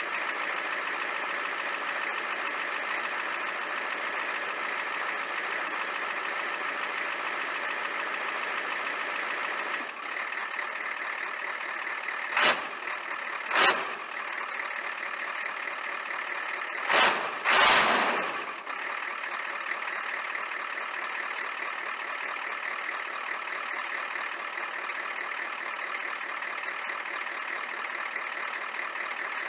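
A 1993 Ford F-350's 7.3-litre IDI V8 diesel idling steadily on a cold start in the snow. Four short, loud bursts of noise break in, two about twelve seconds in and two more around seventeen seconds.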